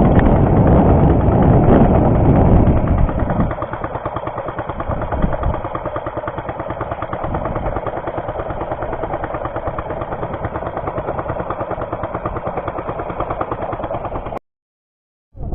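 Small fishing boat's engine running, underway. It is louder for about the first three seconds, then settles to a lower, steady running note, and stops abruptly near the end.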